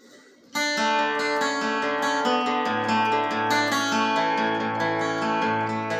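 Acoustic guitar playing strummed chords, coming in about half a second in after a moment of faint hiss.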